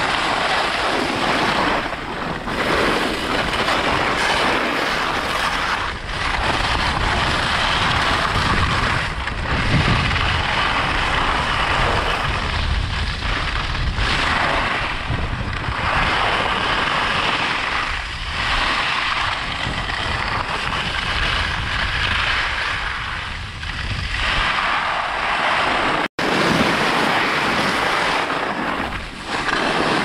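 Ski edges carving and scraping on packed snow in a continuous run, swelling and easing with each turn, with wind buffeting the camera microphone. The sound cuts out for an instant about 26 seconds in.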